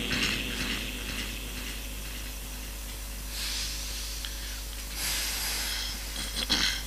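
A pause in Quran recitation heard through a PA microphone: a steady low hum, with two hissing breaths drawn close to the microphone around the middle and a few short clicks near the end.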